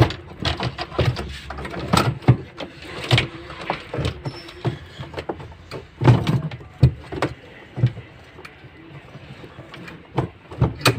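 Irregular knocks, clicks and scrapes of hands fitting a washing machine's spin motor into place, with the loudest clatter a couple of seconds in and again about six seconds in.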